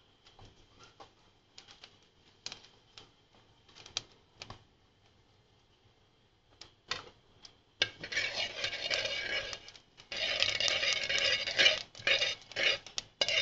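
Cumin seeds sizzling and crackling in hot oil in a steel pot. A few light clicks come first, then a dense spluttering sizzle starts about eight seconds in, with a short break near ten seconds.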